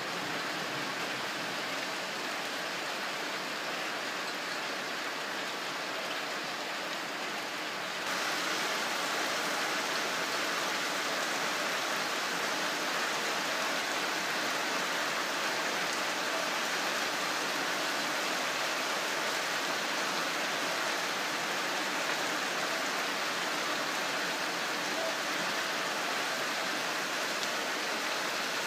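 Steady rain falling, a dense even hiss that gets louder and brighter about eight seconds in.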